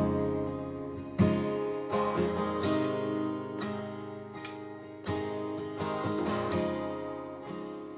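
Instrumental passage of a song cover: acoustic guitar strumming chords, struck roughly once a second, each chord left to ring and fade.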